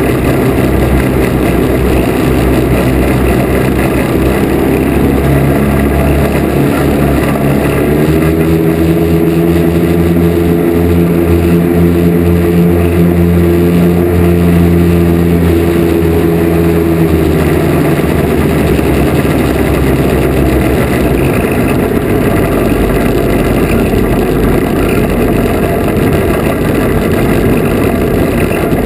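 Twin small two-stroke engines of a Lazair ultralight droning under heavy wind rush over the airframe. The engine note grows steadier and stronger about eight seconds in, then sinks back into the wind noise a little past halfway.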